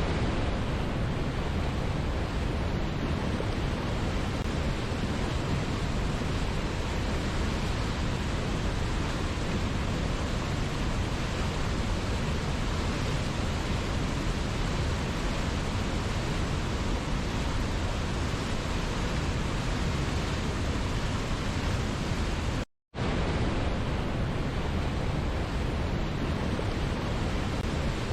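Steady rush of a waterfall, an even hiss heaviest in the low end. It cuts out for a split second about 23 seconds in, then resumes unchanged.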